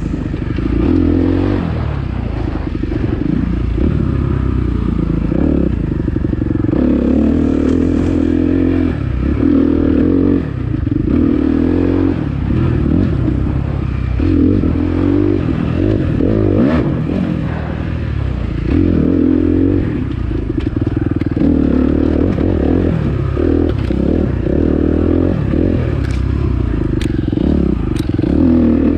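Dirt bike engine ridden under constantly changing throttle, revving up and dropping off every second or two. A few sharp clicks come near the end.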